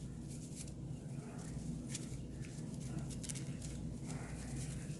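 Faint scratchy rubbing with light irregular clicks: a solvent-dampened cloth being worked over and into the parts of a Glock 23 pistol during cleaning.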